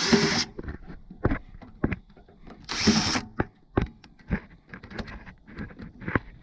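Cordless drill running in two short bursts of about half a second each, at the start and about three seconds in, as the bit works at a steel rivet holding a worn mower-deck blade brake pad. Scattered clicks and knocks fall between the bursts.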